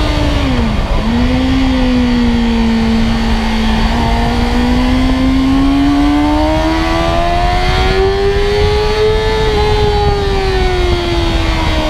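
Sport motorcycle engine heard from onboard at track speed, over a low rush of wind. Its pitch dips sharply and snaps back up in the first second, then climbs slowly for about five seconds as the bike pulls, and drops again near the end.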